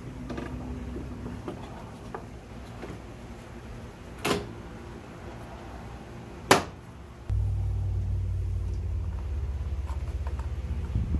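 Plastic headlight assembly of a 1996 Toyota Corolla knocking twice against the body as it is pressed into place, the second knock sharper and louder. Then a steady low rumble sets in for about four seconds.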